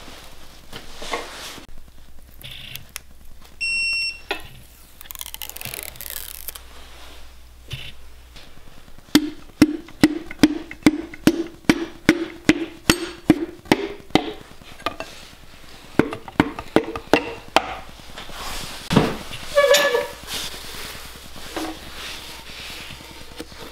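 A piston being tapped down through a Wiseco tapered ring compressor sleeve into the bore of a Honda B18 block with a tool handle. There is a run of quick taps over about five seconds, roughly two and a half a second, each with a short ring, and a few more taps later. A short high beep comes at about four seconds.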